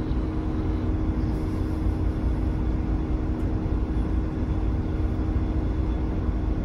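Winnebago Ekko's Ford Transit engine idling, heard inside the cab as a steady low rumble with a constant hum.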